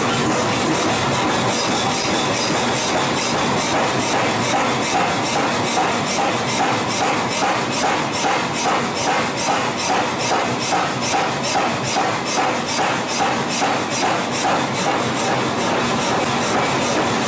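Forging machinery running with a loud, steady noise. For most of the stretch a fast, even pounding of about three to four strokes a second is heard.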